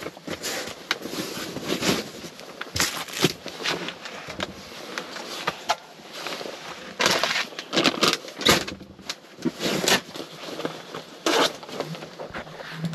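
Irregular rustling, scraping and knocking from gear and clothing being handled and moved about, in uneven bursts with several louder ones.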